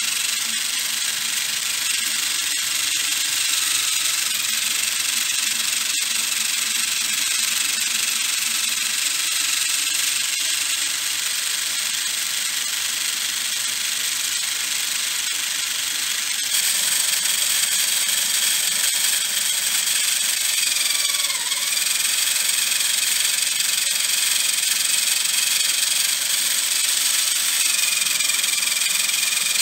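Small electric motor driving a homemade PVC engine-and-gearbox model, a steady whirring hiss with a light rattle of plastic gears. About halfway through the sound turns suddenly thinner and higher.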